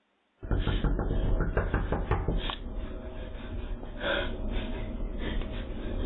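A woman knocking and banging hard on a front door, in quick repeated strokes, heard through a doorbell camera's tinny microphone with a low rumble underneath. Her short voiced cry comes about four seconds in.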